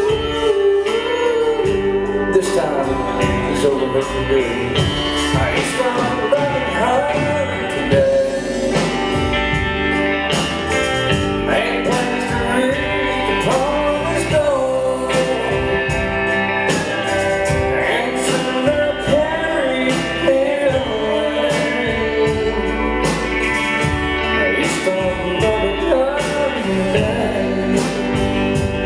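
Live country band playing a slow ballad: acoustic and electric guitars, bass, drums and pedal steel guitar, with a lead line that glides in pitch over the steady accompaniment.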